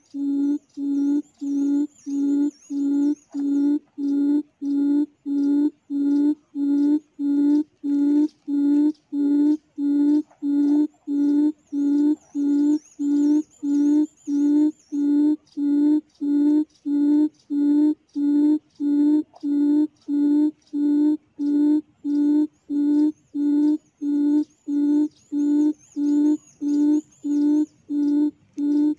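Recorded quail call played through a speaker as a trapping lure: a low hooting note repeated evenly, about one and a half times a second, without a break. A faint high twittering comes and goes above it a few times.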